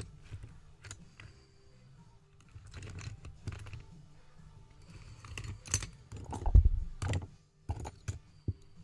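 Irregular light clicks and scrapes of a hook pick working the serrated pins of a 5-pin solid brass U-Haul padlock under a tension wrench, busier in the second half, with a louder low knock about six and a half seconds in.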